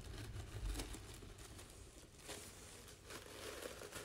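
Canvas dust bag rustling and crinkling in gloved hands as a handbag is drawn out of it, in several soft swells.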